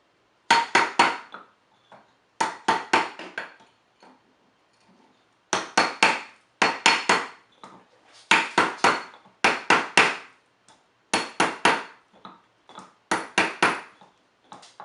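Mallet striking a ring band on a ring mandrel to true it round: quick runs of about three blows, repeated roughly eight times with short pauses, each blow leaving a faint metallic ring.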